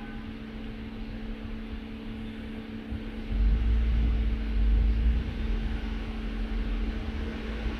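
Toyota Avalon V6 engine idling steadily with a constant hum; the misfire has cleared since cylinders 2 and 6 swapped spark plugs, which points to a fouled spark plug. A low rumble swells for a couple of seconds about three seconds in.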